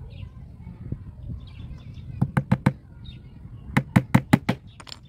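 Small hammer tapping upholstery tacks through cloth into a wooden chair-seat frame: a run of four quick taps about two seconds in, then five more about a second and a half later.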